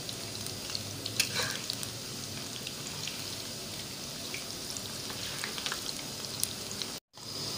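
Gram-flour pakoras deep-frying in hot oil at medium-low heat: a steady sizzle with scattered crackles. A metal spoon stirs and turns them, with a few sharper scrapes about a second in. The sound cuts out for an instant near the end.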